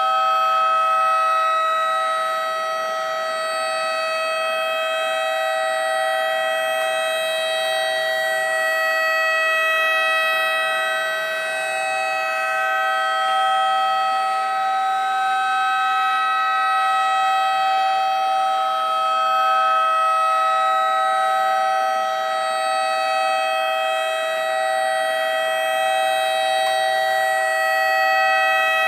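Homemade electronic mini tornado siren, a 555-timer tone generator driving an LA4440 amplifier, sounding a steady chord-like tone. The loudness swells and fades about every nine seconds as the rotator turns it.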